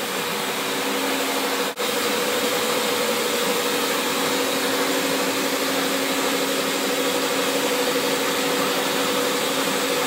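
Steady whirring hum of a running plastics extrusion machine, with a constant low drone under it; the sound dips out for an instant about two seconds in.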